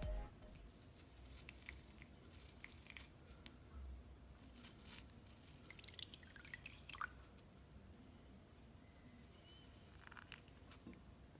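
Faint, scattered squishing and small clicks of slime being pressed and handled.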